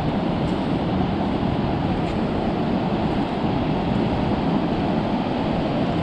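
Wind blowing across the microphone: a steady, low, buffeting rumble with no letup.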